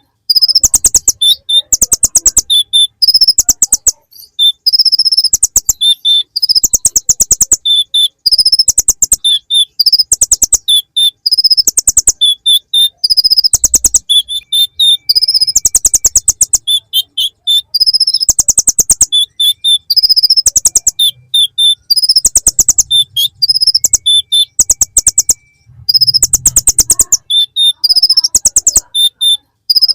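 Kolibri ninja (konin) sunbird singing a loud song of rapid, dry, ticking trills, repeated about every second or so, in the style of a bar-winged prinia (ciblek).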